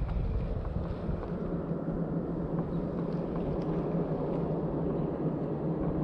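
Steady low outdoor rumble with a faint steady hum underneath.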